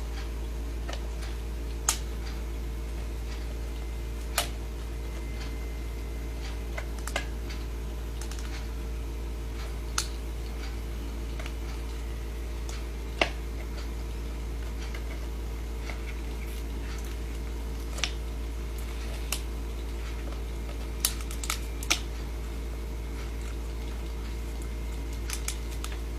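A crab's claws clicking as it feeds: about a dozen sharp clicks at irregular intervals, with three close together about 21 to 22 seconds in, over a steady low hum.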